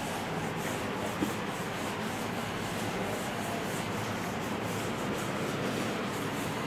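A cloth duster wiping chalk off a blackboard: a steady rubbing hiss of cloth across the board, stroke after stroke.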